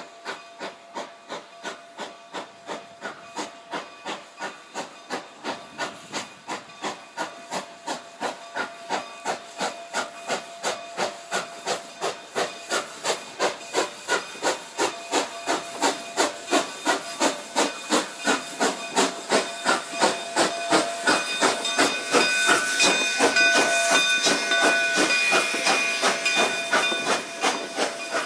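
Narrow gauge steam locomotive working toward and past the listener, its exhaust chuffing in a slow, even beat with steam hiss, growing steadily louder as it draws near.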